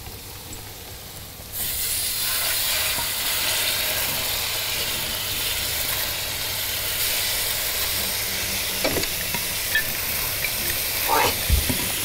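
Food frying over high heat: a steady sizzling hiss that starts abruptly about a second and a half in, with a few light knocks in the second half.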